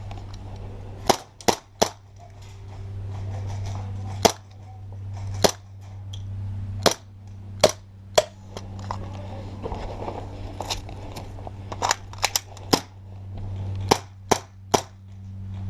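Airsoft guns firing: sharp snapping shots at irregular intervals, mostly single, with a few quick runs of two or three close together.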